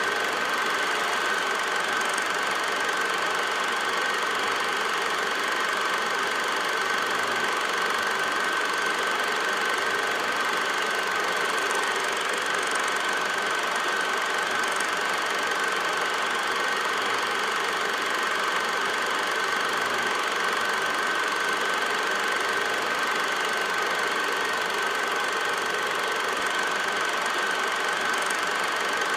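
8mm film projector running: an even mechanical clatter with a constant high whine that never changes.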